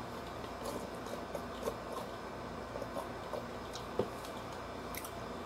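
Faint small clicks and ticks from sipping soda through a straw and handling a paper cup, over a steady low room hum. One sharper click comes about four seconds in.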